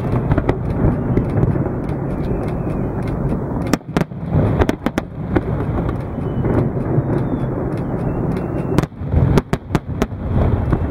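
Fireworks display: a dense, continuous rumble of shells bursting, cut through by many sharp cracks, dipping briefly about four seconds in and again near nine seconds.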